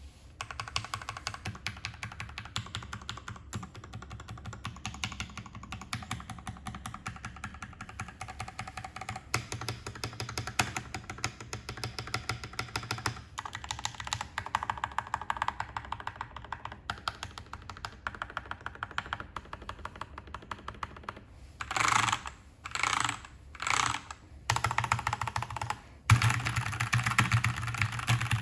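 Typing on a Keychron K4V2 aluminium-case mechanical keyboard with stock linear Gateron Red switches and ABS doubleshot keycaps: a steady stream of clacking keystrokes. Near the end come four short flurries of very fast key presses, then louder, heavier typing.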